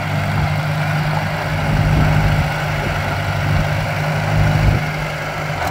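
Ford farm tractor engine running steadily at low speed while the tractor drives slowly.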